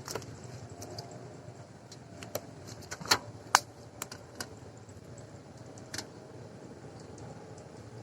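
Several sharp clicks and taps from fishing gear being handled, the loudest pair about three seconds in, over a faint steady low hum.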